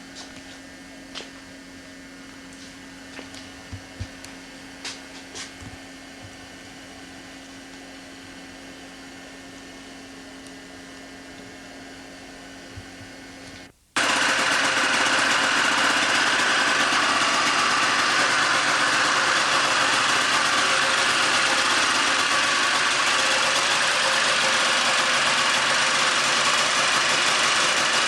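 A vehicle engine running steadily: first a moderate hum with a few scattered clicks, then, after a sudden break about fourteen seconds in, a much louder, harsher running noise.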